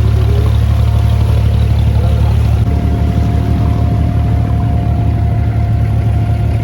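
Diesel engine of a wooden abra water taxi running steadily with a deep, loud hum. A little under three seconds in, its note shifts to a more pulsing beat.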